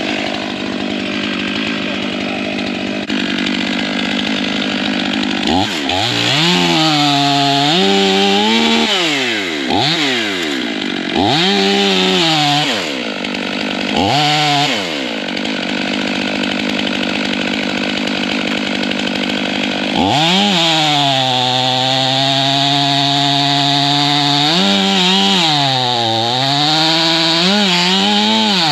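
Two-stroke chainsaw bucking a white oak log: the engine revs up and falls back several times, then holds a long steady cut from about two-thirds of the way in, its pitch sagging briefly under load near the end.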